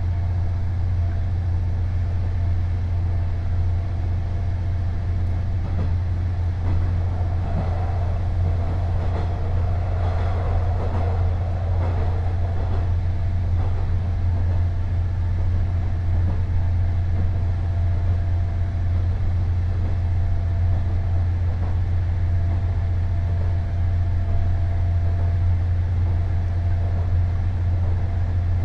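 KiHa 48 500-series diesel railcar running, its diesel engine giving a steady low hum throughout. For several seconds near the middle a rougher mid-pitched rumble swells over it, then dies back.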